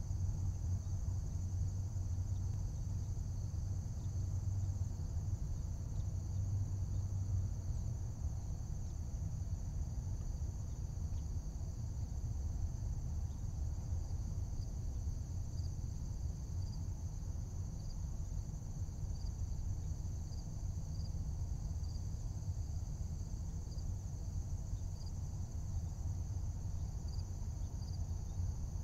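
Outdoor insect chorus: a steady high-pitched chirring, with one insect chirping at an even pace, a little more than once a second, from about halfway through. A low steady rumble runs beneath it.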